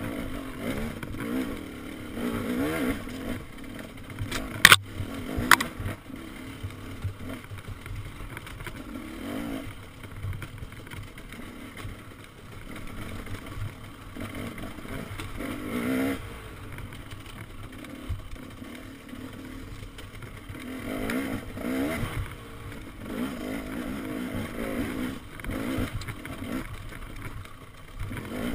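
KTM enduro dirt bike engine revving up and down as it climbs and picks its way over rocky trail, with the throttle constantly opening and closing. Two sharp knocks about five seconds in are the loudest sounds.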